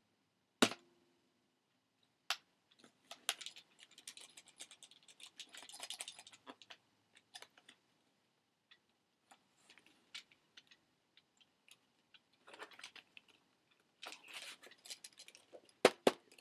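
Clicks and light rattling of a plastic toy alarm clock being handled and fiddled with: sharp single clicks, one about a second in and a loud pair near the end, between clusters of small rattles and scrapes.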